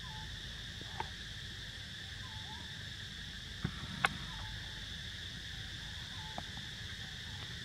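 Steady insect drone with a few sharp clicks, the loudest about four seconds in, and faint short chirps now and then.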